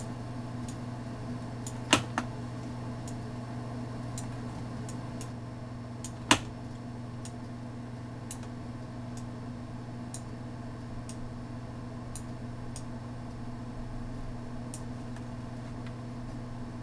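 Computer mouse clicking while the grab tool is dragged over the mesh. Faint clicks are scattered throughout, with a louder double click about two seconds in and a single sharp click about six seconds in, over a steady low hum.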